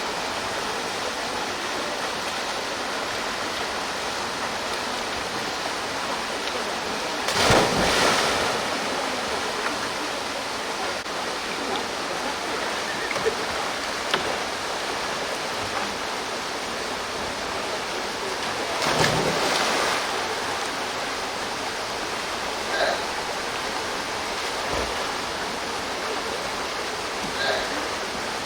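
Steady rush of a waterfall pouring into a pool, broken twice, about 7 seconds and 19 seconds in, by a loud splash as a diver hits the water.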